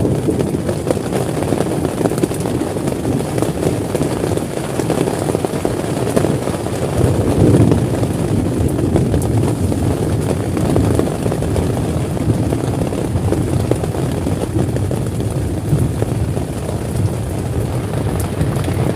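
Heavy rain drumming steadily on a tent, a dense low-pitched rumbling patter with no let-up.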